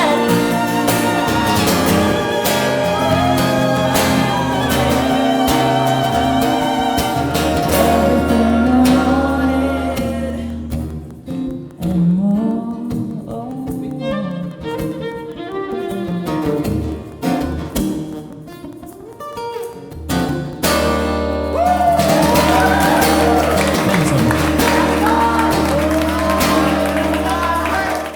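Live performance of a pop ballad: instruments with a singing voice. The music thins out about ten seconds in, dips briefly around twenty seconds, comes back full, and then stops.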